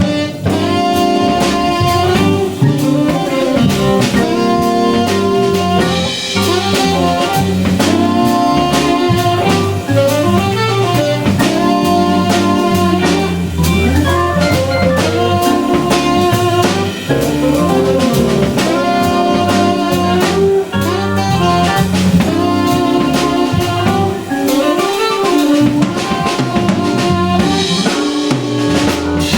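Small jazz band playing live: organ, tenor saxophone, guitar and a drum kit keeping a steady beat.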